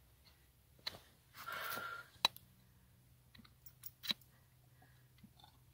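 Hoof knife paring dead sole from a horse's front hoof: several sharp clicks of the blade and one short scraping stroke about one and a half seconds in.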